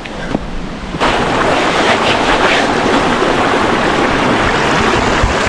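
Waterfall's rushing water, a loud steady roar that comes in suddenly about a second in.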